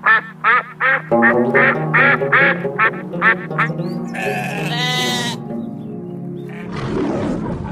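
Canada geese honking, a quick run of about ten short calls, followed about four seconds in by a sheep bleating, over steady background music.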